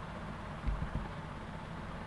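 Steady low background hiss and rumble of room noise, with a brief low bump a little under a second in.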